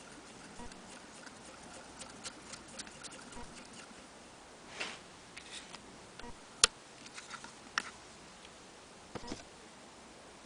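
Irregular light clicks and taps of small parts of an antique Willcox & Gibbs sewing machine being handled, with a few louder ones in the second half and one sharp click a little past the middle.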